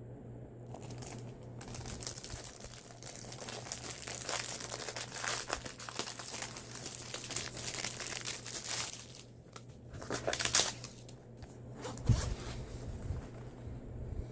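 Packaging crinkling and tearing as an item is unwrapped by hand, with dense crackles for several seconds, then a few sparser rustles and a single knock about twelve seconds in.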